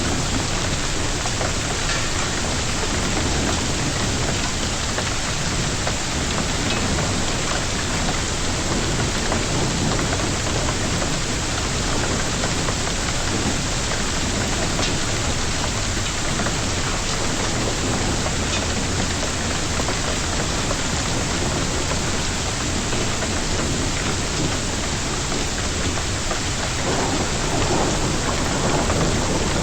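Heavy rain and hail of a storm pelting down steadily, with faint scattered ticks of individual stones or drops, getting a little louder near the end.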